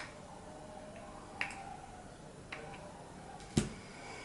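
Four sharp clicks and knocks of a small adjustable wrench and plastic BCD inflator parts being handled. The loudest, a duller knock about three and a half seconds in, is the metal wrench being set down on the table.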